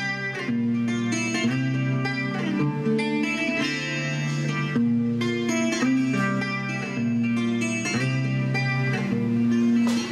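Acoustic guitar playing an instrumental passage, a steady run of plucked notes and chords with no singing.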